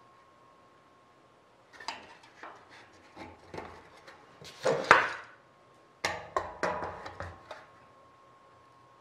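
Aluminium aircraft parts being handled and fitted by hand: a series of light metal clicks, clinks and scrapes starting about two seconds in, the loudest a scrape near the middle. About six seconds in comes a sharp clack and a quick run of clicks as locking C-clamp pliers are set around the rib.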